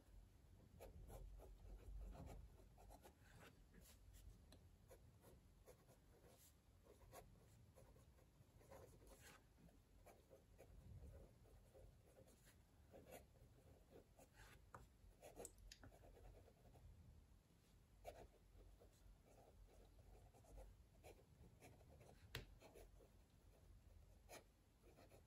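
Fine steel nib of a Kaweco Sport fountain pen writing a sentence on Rhodia dot-grid paper: faint, short scratching strokes in quick succession, the nib gliding smoothly over the paper.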